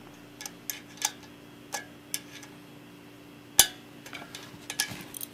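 Scattered small metallic clicks and taps of fingers handling the brake cable and cable-stop fittings at a bicycle's front drum brake, with one sharper, louder click about three and a half seconds in.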